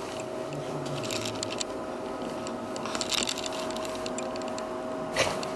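Four-pole RF face handpiece of a 5-in-1 cavitation/RF beauty machine running after being started: a steady high-pitched electrical whine, with light handling clicks and rustling about three seconds in and again near the end.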